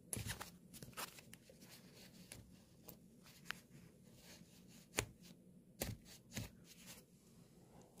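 Sharp, irregular taps and knocks of a snap-button setting tool being struck down onto a metal snap fastener set in a padded nylon jacket, the loudest knock about five seconds in. It is a snap being re-set after it got squashed out of shape.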